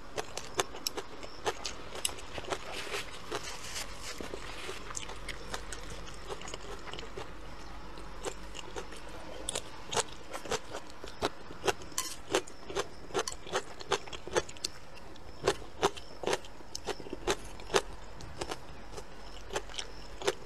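A person chewing a mouthful of rice and stir-fried vegetables close to the microphone: a run of sharp, wet chewing clicks at about two a second, loudest in the second half.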